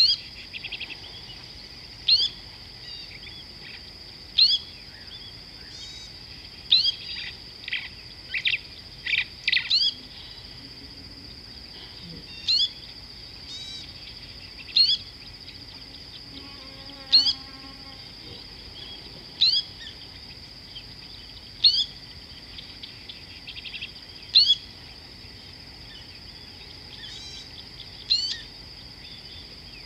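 A bird repeating a short, sharp call about every two seconds, with a quick flurry of calls a few seconds in, over a steady high-pitched insect drone.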